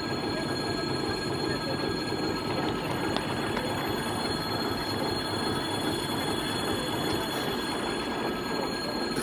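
Diesel locomotive running slowly through a level crossing: a steady engine and rolling noise, with several steady high tones above it.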